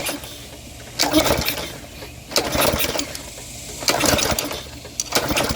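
Small Briggs & Stratton 500e edger engine being pull-started: four short cranking bursts about a second and a half apart, and the engine does not catch.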